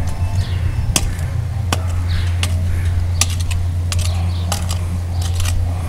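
A short-handled hand hoe chopping into stony soil, giving irregular sharp clicks as the blade strikes stones and clods, over a steady low hum.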